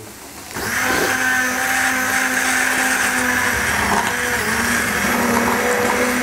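Electric immersion blender switching on about half a second in and running steadily, puréeing cooked vegetable soup in a stainless steel pot.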